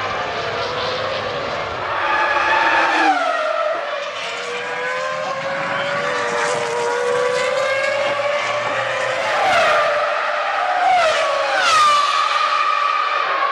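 Formula One cars' 3-litre V10 engines at high revs. The pitch drops sharply in quick steps, as when downshifting on braking for corners, about three seconds in and again several times near the end, then climbs as the engines pull away.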